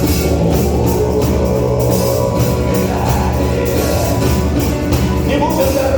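Live rock band playing, with guitars over a steady drum beat.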